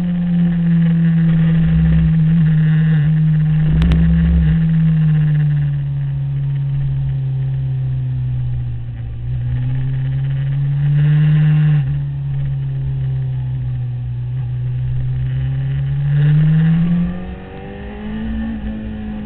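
Sport motorcycle engine running hard on a race track lap, its note easing down through a long corner, then rising sharply near the end before falling back. Wind noise rushes over the engine throughout, with a single knock about four seconds in.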